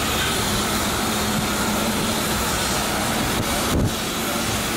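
Steady city street traffic noise, a dense continuous rumble and hiss, with a short low thump near the end.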